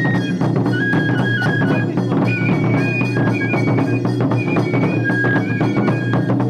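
Japanese festival hayashi music: a high, held bamboo-flute (fue) melody stepping between notes over steady, rapid drumming.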